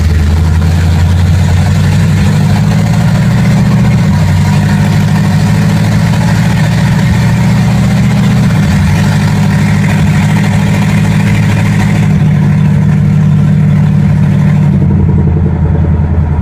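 Chevrolet engine of a 1955 Chevy panel truck running loud through open headers while driving, heard from inside the cab, with its pitch shifting up and down several times as the throttle changes.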